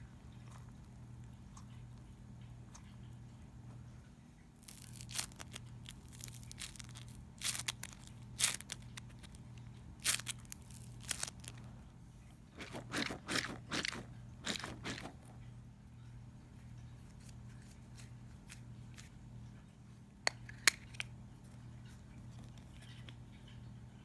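Fidget toy being handled: bouts of crunching and crackling, densest in the middle, then two sharp clicks near the end, over a steady low hum.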